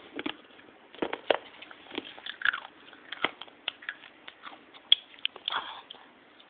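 Handling noise of a phone held close to its microphone: scattered irregular clicks, knocks and rubbing, with a few faint short vocal sounds.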